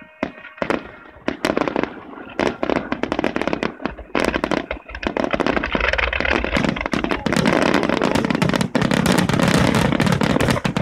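Fireworks display: aerial shells bursting in quick succession with crackling between the bangs. About halfway through, the bangs crowd together into a near-continuous barrage.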